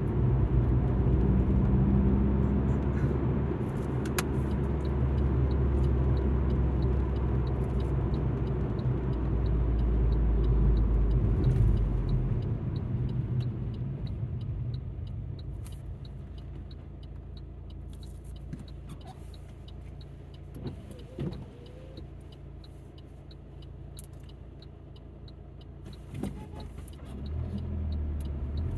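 Inside the cabin of a moving Alfa Romeo MiTo: low engine and road rumble. It fades about halfway through and builds again near the end.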